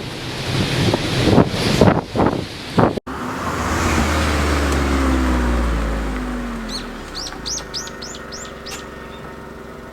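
Typhoon wind gusting hard on the microphone for about three seconds, then cut off abruptly. After the cut a vehicle passes, a low rumble with falling pitch that swells and fades, and a bird chirps a quick series of about eight high notes near the end.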